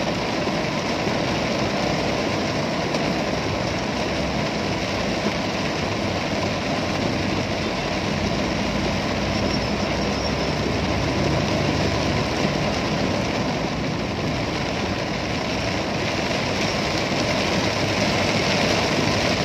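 Steady rain on a car's roof and windscreen, heard from inside the cabin, over the car's engine running in slow traffic.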